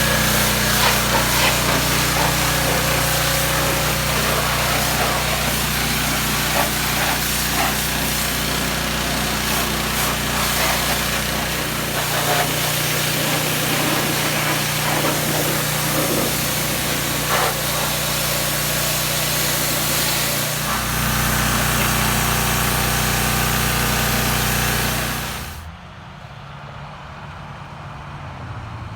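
A small engine-driven cleaning machine running steadily, with a loud hiss of spray or air over its engine note, as the combine is cleaned. The hiss cuts off suddenly near the end, leaving the engine running more quietly.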